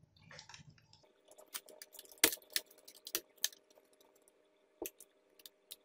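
Scattered sharp clicks and taps of a screwdriver and small screws against a laptop's metal bottom cover as the back-cover screws are taken out, about half a dozen irregular clicks with the loudest a little over two seconds in.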